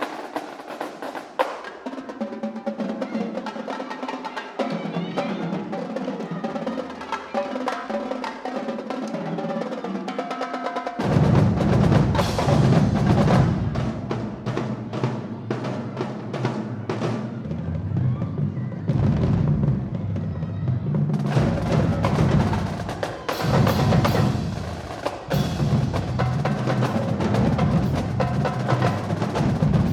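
College marching drumline playing a fast percussion cadence of rapid snare and tenor-drum strokes. About eleven seconds in, the low bass drums come in and the playing gets markedly louder.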